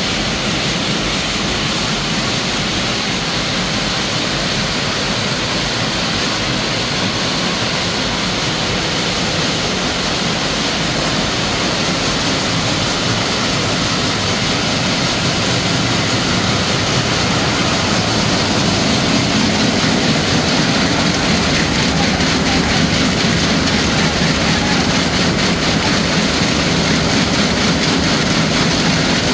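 Industrial cashew sieving machine running: a loud, steady mechanical rattle and rush of raw cashew nuts being fed and shaken across its vibrating screen. The noise grows a little louder and heavier about halfway through.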